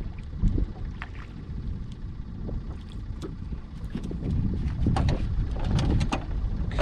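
Wind buffeting the microphone, with a low rumble and water lapping at a small boat's hull. Scattered clicks and knocks, busier and louder in the second half, as a hooked fish is reeled in on a rod and float rig and lifted aboard.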